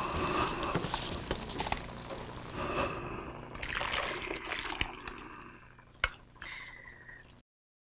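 Blended kimchi seasoning being poured from a stainless steel blender jug into a glass bowl, with the clatter of the jug and its lid being handled. A single sharp knock comes about six seconds in.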